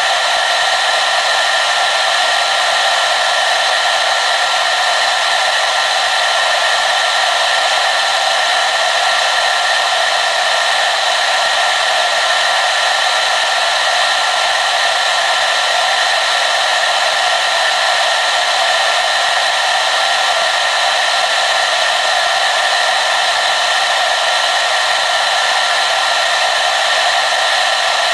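Hair dryer running steadily: a continuous airy rush of the fan with a hum, unchanging throughout.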